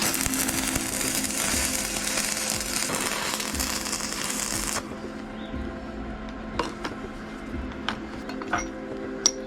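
Metalworking noise: a steady, harsh hiss that cuts off suddenly about five seconds in, followed by scattered light metallic taps, over background music.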